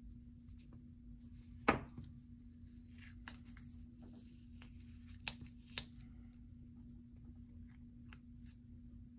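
Hands handling planner stickers and paper: light rustling and faint clicks, with a sharp tap a little under two seconds in as the craft knife is set down on the desk, and two sharp clicks about five and a half seconds in. A steady low hum underneath.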